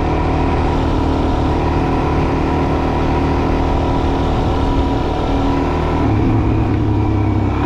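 Adventure motorcycle's engine running steadily under way, with an even rush of wind and road noise; the engine note changes about six seconds in.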